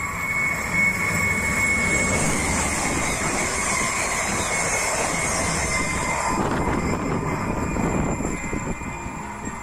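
Renfe class 334 diesel locomotive hauling Intercity passenger coaches past at speed: the engine and the steel wheels on the rails build to a loud rush with a steady high whine, then turn to an uneven clatter of wheels as the train draws away.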